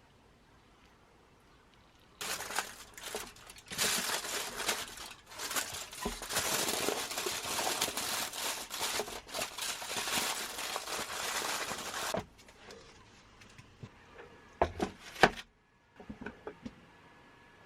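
Crinkling and rustling of wrapping being handled for about ten seconds, starting about two seconds in, followed by a few sharp knocks near the end.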